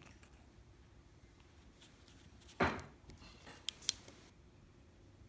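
Small handling sounds: a soft knock about halfway through, then light rustling and two sharp clicks in quick succession.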